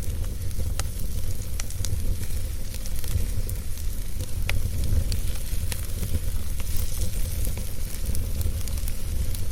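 Wood fire burning in a fireplace: a steady low rumble under a hiss, with scattered sharp crackles and pops.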